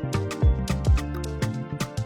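Background music with a steady, upbeat drum beat: punchy kick drums with falling bass sweeps and crisp percussion hits over sustained bass and keyboard notes.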